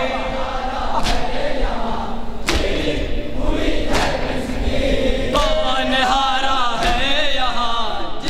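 A group of men chanting a nauha (mourning lament) together, with the mourners beating their chests (matam) in time: a sharp slap about every second and a half. The sung voices come in strongly about five seconds in.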